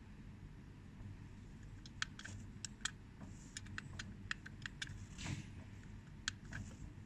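Buttons on a digital kitchen timer being pressed: a run of about a dozen quick plastic clicks at uneven spacing, starting about two seconds in, with a brief handling rustle near the end.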